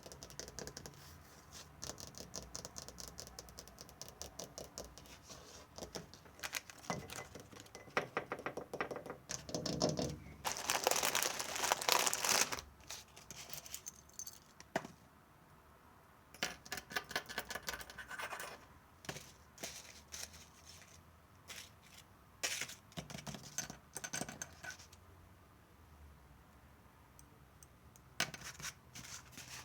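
Close-up ASMR trigger sounds: scratching and scraping on an object, made of rapid fine clicks in irregular bursts with short pauses between them. The loudest, roughest scratching comes about a third of the way in.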